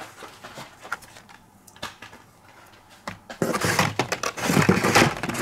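Carded Hot Wheels cars in plastic blister packs being handled and set down: scattered light clicks, then a louder run of plastic-and-cardboard clattering and rustling in the second half.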